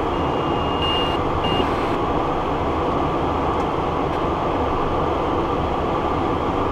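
Steady cockpit noise of a Cessna Citation Encore business jet in flight: a constant rush of airflow and engine noise. Near the start a thin high tone sounds for about a second, then briefly once more.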